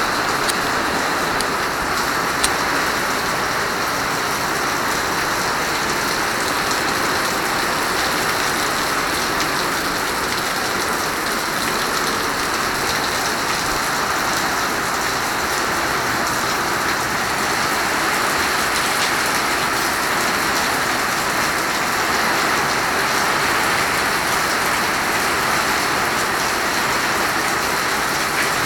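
Heavy rain falling in a steady downpour, with a single sharp click about two and a half seconds in.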